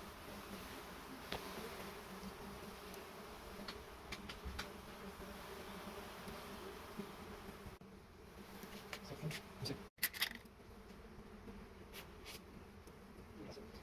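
A swarm of honey bees buzzing around their hive in a steady hum, with scattered small clicks and a brief cut-out about ten seconds in.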